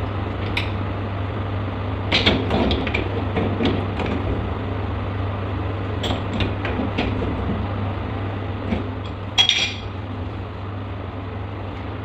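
A wrench clicking and clanking against a chrome sink P-trap as its slip nut is tightened: scattered sharp metal knocks, the loudest about nine and a half seconds in, over a steady low hum.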